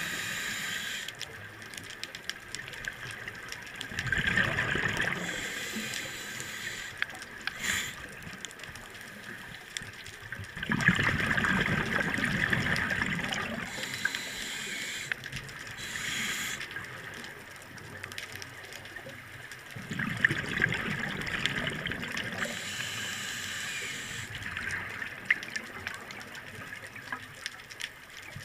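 Scuba diver breathing through a regulator underwater. Slow breaths: exhaled bubbles gurgle out three times, about 4, 11 and 20 seconds in, with softer hissing inhalations between them.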